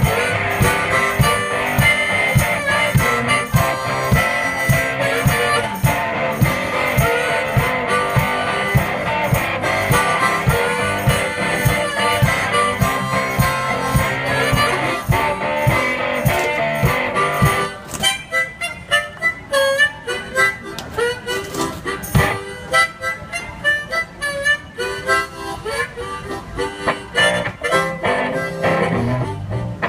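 One-man band playing a harmonica solo over guitar and a steady low drum beat. About eighteen seconds in, the harmonica drops out and the guitar carries on with picked notes.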